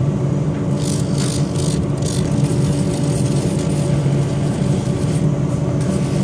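Electric motor of a shoe finishing machine running with a steady hum, its spinning wheel rubbing on and off against a leather boot's upper and rubber sole as they are held to it.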